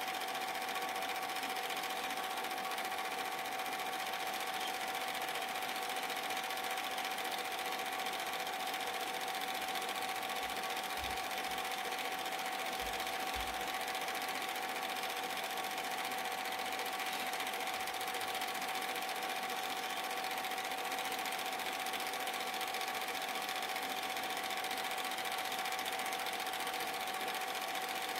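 Super 8 film projector running: a steady mechanical whir with a constant tone through it.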